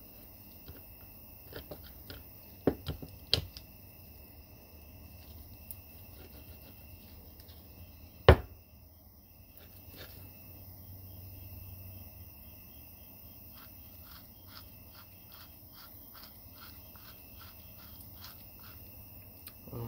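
Light metallic clicks and knocks of steel gears, shafts and bearings being seated and turned by hand in the open gear case of a Toro 74-1861 three-speed mower transmission. A single sharp knock comes about eight seconds in, and a run of quick light ticks comes near the end.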